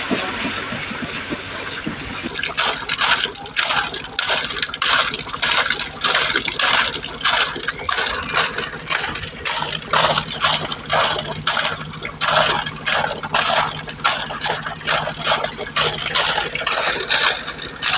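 Air-lifted water and compressed air gushing from a borewell discharge pipe. It flows as a steady gush at first, then from about two seconds in breaks into irregular spurting surges several times a second. A steady low hum of the 5 hp borewell air compressor runs underneath.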